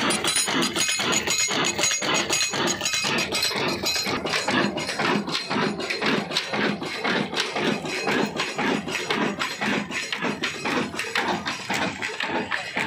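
Old stationary diesel oil engine running with a rapid, even clatter of mechanical knocks.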